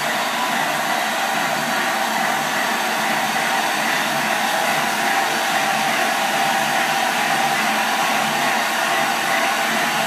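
LNER A4 Pacific steam locomotive standing with steam hissing steadily and loudly, with no exhaust beats.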